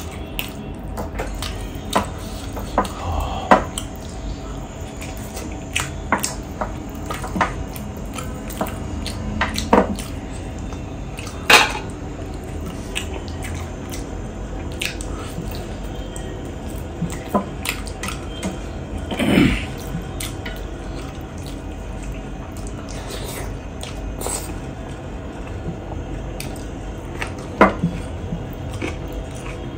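Close-up eating sounds of a person chewing pork leg pickle and rice: scattered wet smacks and clicks, a few of them louder, at irregular intervals.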